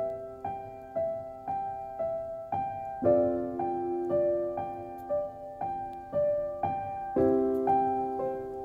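Background piano music: a gentle melody of evenly paced notes, about two a second, with fuller chords coming in twice.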